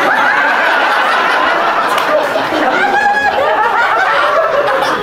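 A group of people laughing and chuckling together, several voices overlapping at once.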